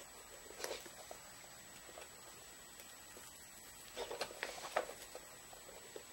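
Light clicks and taps of 3D-printed PLA plastic parts being handled and set down on a wooden floor, with a busier run of them about four seconds in.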